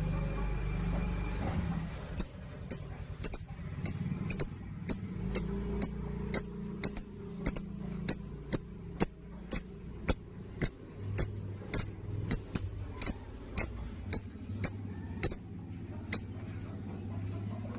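Lovebird giving a long run of short, sharp, high chirps, about two a second, starting about two seconds in and stopping near the end: a lure call used to set other lovebirds calling.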